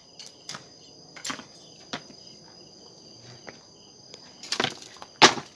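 Steady high-pitched insect trilling, over which hoe blades strike the soil in a series of dull thuds about a second apart, the loudest two near the end.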